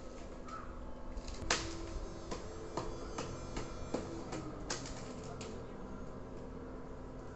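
An irregular run of sharp knocks, about a dozen over four seconds, the first the loudest.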